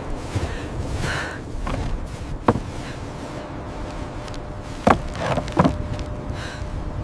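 Three sharp knocks or thuds: one about two and a half seconds in, then two more less than a second apart about five seconds in, over a steady low rumbling noise.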